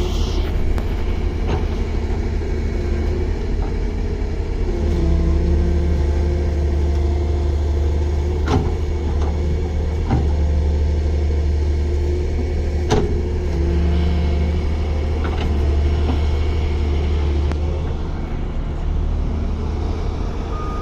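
Excavator's diesel engine running steadily under working load, its note stepping up about five seconds in, with a few sharp knocks.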